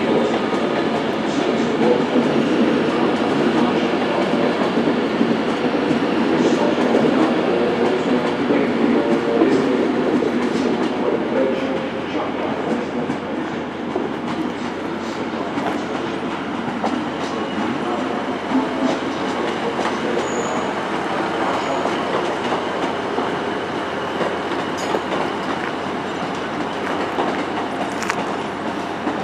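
Long passenger train running past a station platform: a steady rumble of wheels on rail, louder for the first dozen seconds and then easing off slightly.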